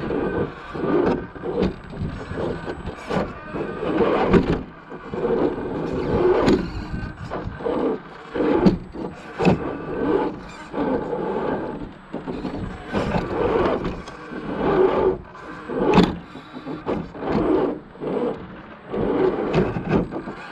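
Axial SCX10 II 1/10-scale RC crawler's electric motor and geared drivetrain whining in short bursts of throttle, rising and falling in pitch, with frequent scrapes and knocks as the chassis and tyres climb over obstacles.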